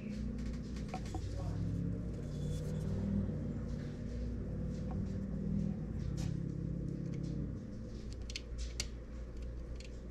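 Low steady rumble with a few sharp clicks and taps, bunched about six to nine seconds in, as the new USB microphone is handled and set up on the desk.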